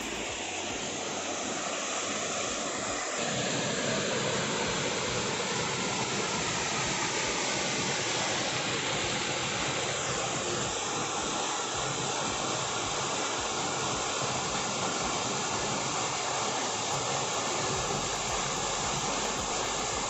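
Small waterfall splashing into its plunge pool: a steady rushing of falling water that grows a little louder about three seconds in.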